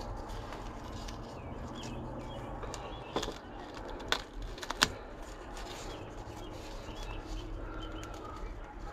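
Faint rustling and handling as nitrile-gloved hands press and smooth duct tape holding a transducer to the hull, with three short sharp clicks about three, four and five seconds in, over a low steady hum.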